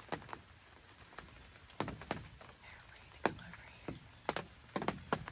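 Light, sharp taps and clicks at irregular intervals, sometimes two or three close together, over a quiet background.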